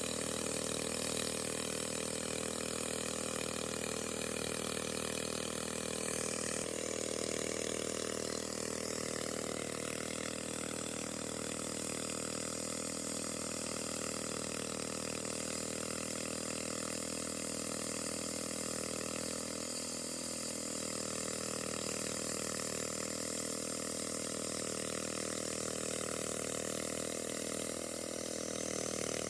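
A machine runs steadily with a constant multi-pitched hum under rushing water, the sound of water-cooled concrete cutting; its tone shifts about seven seconds in.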